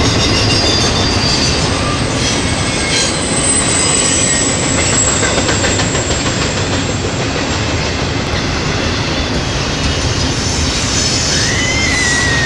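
Double-stack intermodal container train rolling past: a steady rumble and clatter of well cars on the rails, with a thin, high wheel squeal for a few seconds starting about two seconds in.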